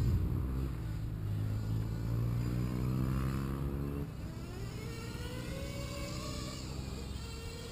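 Motor and propeller of the Oxy running in flight, a steady drone for about four seconds. The pitch then shifts and wavers as it moves away and changes speed.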